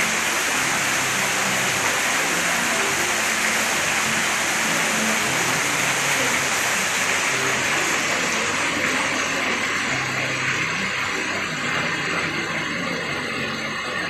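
Thin streams of a small waterfall falling onto rocks and into a pond, splashing with a steady hiss; the sound turns a little duller after about eight seconds.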